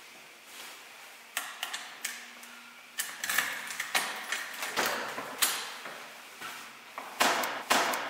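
A key being worked in a door's lock, then the door opened: a run of metallic clicks, scrapes and rattles as the key goes in and turns, and two louder clunks near the end.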